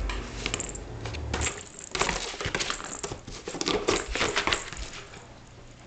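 A 12-week-old Shetland sheepdog puppy rummaging in a cardboard box: a run of crackling, scraping and crunching cardboard noises. It is busiest from about two to four and a half seconds in, then dies away.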